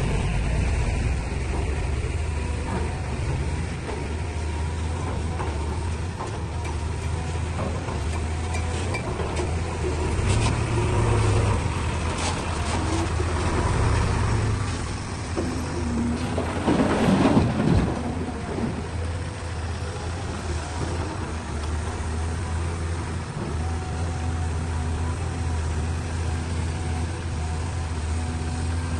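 Diesel engines of a Caterpillar excavator and a Hino Ranger dump truck running steadily, the truck growing louder as it drives close by and pulls into place. About two-thirds of the way through there is a brief louder rush of noise.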